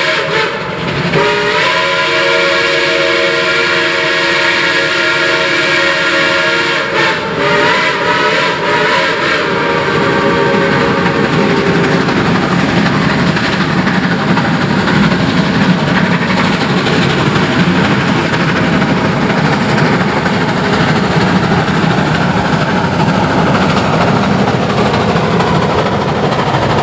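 A steam locomotive whistle sounds a chord in long blasts, broken briefly about half a second in and again about seven seconds in, and fades out around ten to twelve seconds. Then the two geared Shay steam locomotives work past close by: a steady, rough noise of exhaust and running gear.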